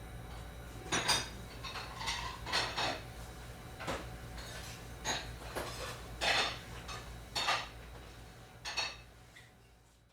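Restaurant kitchen: dishes, pots and cutlery clattering at irregular intervals over a steady low hum, fading out near the end.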